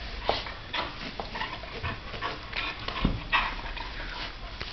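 Two dogs, a flat-coated retriever and a Thai Ridgeback, play-wrestling mouth to mouth: short breathy huffs and snuffles, a few a second, with a low bump about three seconds in.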